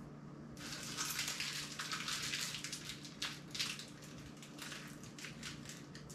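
Dense crackling rustle, as of something crinkly being handled, starting suddenly about half a second in and thinning out toward the end, over a steady low hum.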